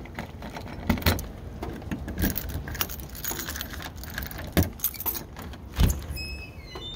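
A bunch of keys jangling, with sharp clicks and knocks as a key works a doorknob lock and the door is pulled open. Near the end there is a brief high squeak as the door opens.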